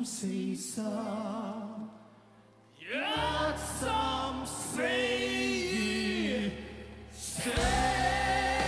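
Two men singing a live duet into microphones over sparse accompaniment, their voices wavering on held notes, with a short pause about two seconds in. Near the end the full band comes in, louder and with a heavier low end.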